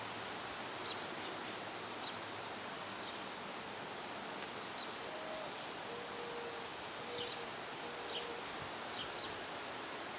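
Outdoor summer ambience: a steady background hiss with scattered faint bird chirps and a faint, even high ticking like an insect. A little past halfway come four short low cooing notes, one higher and then three lower.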